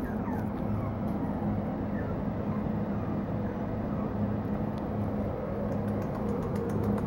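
Steady low mechanical hum with a constant drone, the kind a fan or air-handling unit makes. A few faint short high squeaks come in the first two seconds.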